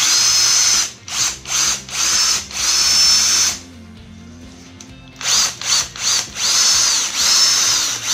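Bosch 18V 1/4-inch hex impact driver driving screws in a series of short trigger pulls. Its motor whine rises and falls with each pull. There are about five pulls, a pause of under two seconds in the middle, then about six more.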